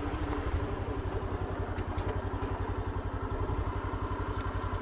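Motorcycle engine running steadily with an even, rapid low pulse and no change in revs.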